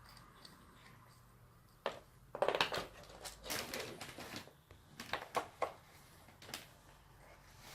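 Cats handling and biting catnip sticks: irregular clicks and knocks, with a short scraping rustle about three and a half seconds in.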